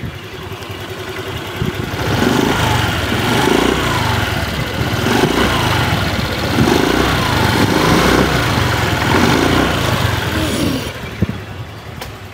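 Honda Vario 150 scooter's single-cylinder engine idling, then revved in a series of short throttle blips, about one every second and a half, from about two seconds in until near the end, when it drops back to idle. The engine note is slightly rough, with a small rattling tick ('ngerr', 'ngelicik') from the middle of the engine that comes up as the throttle is opened.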